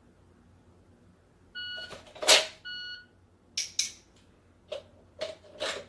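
A shot timer gives a short start beep, and about 1.1 s later a second identical par-time beep. Between the two beeps, the Glock 17 is drawn from a Safariland ALS retention holster with a loud sharp clack. Several more clicks and clacks follow as the pistol and holster are handled.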